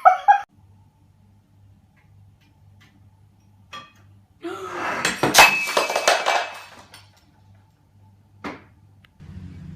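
A sudden loud clatter of knocks and crashes lasting about two and a half seconds, starting about halfway through, with single faint knocks before and after it.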